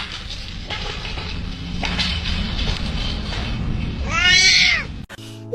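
A cat meows once, a loud drawn-out call about four seconds in, over a steady low rumble of background noise.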